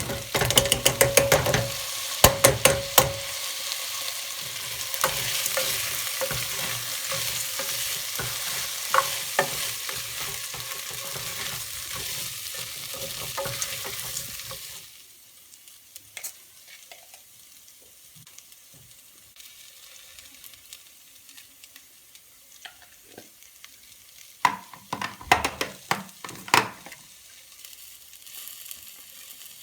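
Food sizzling as it fries in a pan, with frequent sharp clicks and scrapes of a utensil stirring it. The sizzle cuts off abruptly about halfway, leaving a few quieter clatters of kitchenware near the end.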